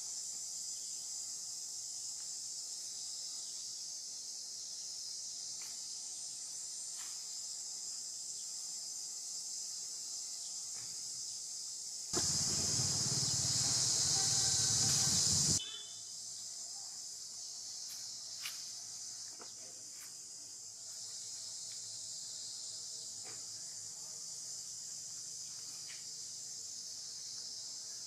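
Steady high-pitched chorus of insects, a continuous buzzing shrill. About twelve seconds in, a louder rush of noise lasting about three and a half seconds covers it, then cuts off suddenly.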